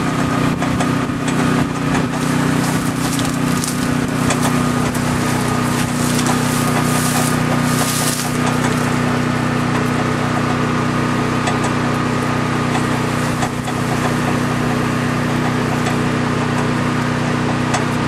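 A pickup truck's engine idling steadily. Over it, a hot steel anvil quenching in river water crackles and hisses, most busily in the first half, its hardening quench from about 1600°F.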